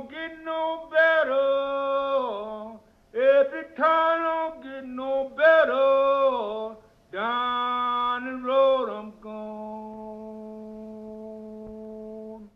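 Background music: a solo voice singing a slow melody in separate phrases, with no accompaniment under it. It ends on a long, quieter held note that stops abruptly.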